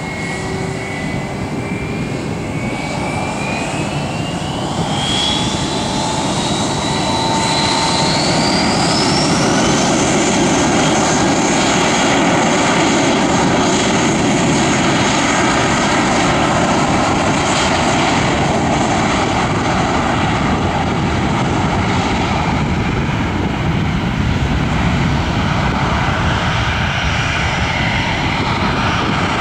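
Airbus A319 airliner's twin jet engines spooling up for take-off: a whine rising in pitch over about the first ten seconds as the sound grows louder, then running steadily at take-off thrust as the plane accelerates down the runway.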